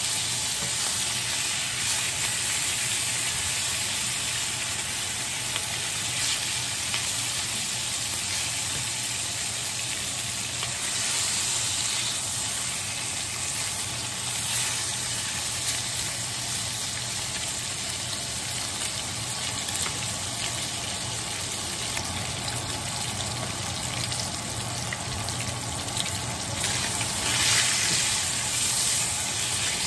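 Bacon sizzling in a screaming-hot cast iron skillet: a steady hiss with scattered pops and crackles that grows louder briefly near the end.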